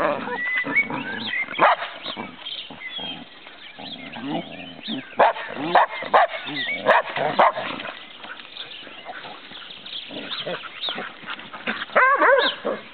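Several Australian Shepherds barking in short, sharp bursts as they play-fight, with clusters of barks in the middle and near the end.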